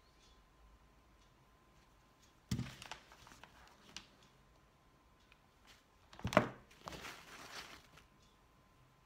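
Two knocks on a tabletop, about four seconds apart, the second louder, each followed by a second or so of rustling, as craft tools and a paper towel are moved about on the table.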